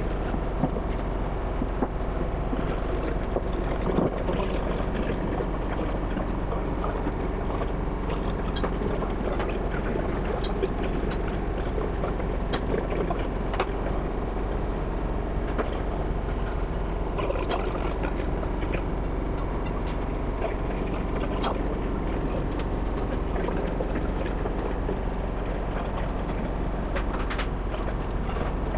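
Steady drone of workshop machinery with a low hum, and scattered metallic knocks and clicks from work going on around the raised locomotive frames.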